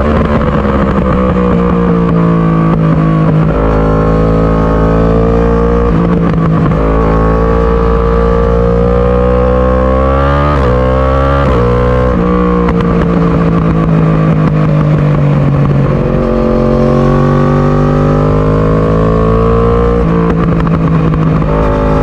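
2018 Yamaha R1's crossplane inline-four engine through an Akrapovic Evolution exhaust, running hard with its pitch climbing and dropping several times as the revs change.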